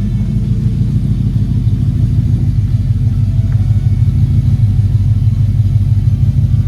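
Factory 5-litre Holden V8 of a 1989 VN Calais running steadily at idle, a deep rumble with a fast, even pulse.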